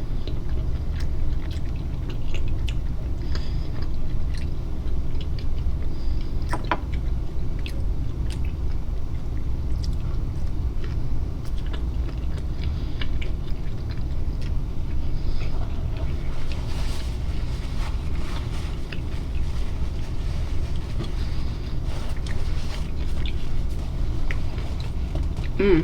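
Close-up chewing and biting while eating fish tacos, with scattered small clicks and crackles over a steady low hum.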